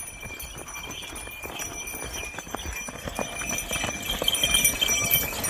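A pair of yoked bullocks trotting on a dirt track, dragging a weighted sledge: hooves clopping and running feet, with some jingling, growing louder as the animals pass close about four seconds in.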